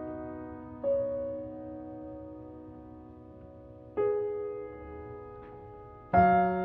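Slow, soft background piano music: a few sustained chords struck a few seconds apart, each dying away before the next.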